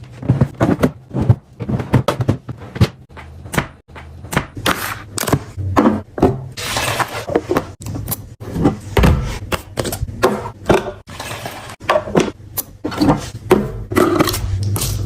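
Household items and packaging being handled and set down during restocking: a quick, irregular run of knocks and clicks mixed with rustling and crinkling.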